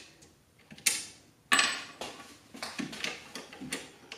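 Metal clicks and knocks from the trigger pin and trigger parts of a GHK AK fire control group being pushed and wiggled into line in the receiver: a sharp click about a second and a half in is the loudest, with lighter clicks after it.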